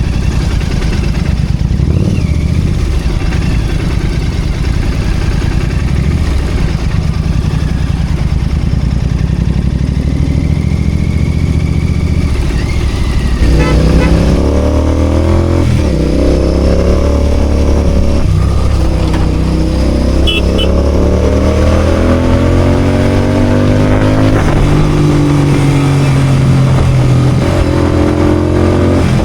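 Royal Enfield GT 650's parallel-twin engine running at low speed, then accelerating from about halfway, its pitch climbing and dropping back at each gear change several times.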